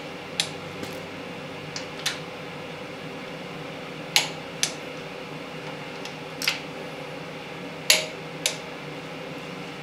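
Click-type torque wrench breaking with sharp single clicks as the water pump bolts on a Chrysler 383 big-block come up to 30 foot-pounds. There are several clicks a second or two apart, some in close pairs, over a steady hum.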